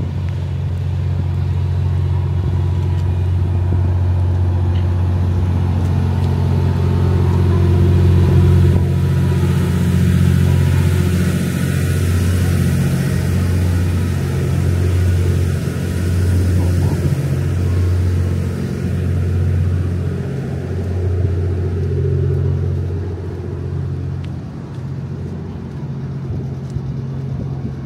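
Diesel generator engines of the Twilight Express Mizukaze (JR West 87 series hybrid train) running beside the platform, a steady low drone. From about ten seconds in, the drone pulses unevenly in level.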